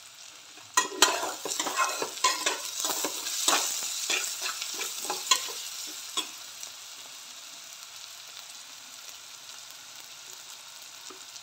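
Slotted steel spatula scraping and clinking against a steel kadai as vegetables frying in ghee are stirred, with many quick scrapes for about the first six seconds. After that the stirring stops and only the steady sizzle of the frying vegetables goes on.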